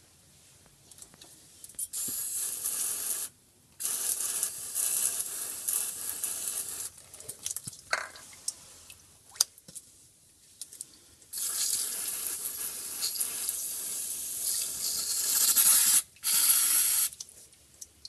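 Aerosol cleaner can spraying in four hissing bursts, the longest about five seconds, with short pauses between them.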